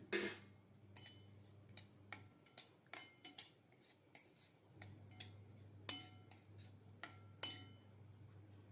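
A metal spoon clinking against a metal cooking pan: about a dozen sharp, ringing clinks at irregular intervals, over a faint low hum that stops for a couple of seconds in the middle.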